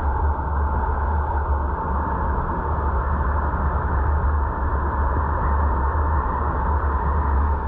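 Steady road and wind noise of a car driving, with a deep low rumble, heard through a dashcam inside the car.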